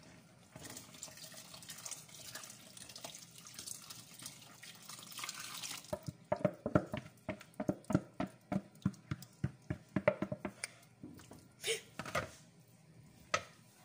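Powdered milk being stirred in a plastic bowl with a steady hiss, then, about six seconds in, poured into a pot of rice, giving a quick run of splashing about four times a second for some four seconds. A few knocks of a wooden spoon in the pot near the end.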